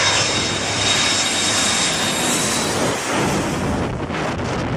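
Jet aircraft passing low overhead on landing approach: loud, steady jet engine noise with a high whine that fades out about halfway through. Near the end, wind buffets the microphone.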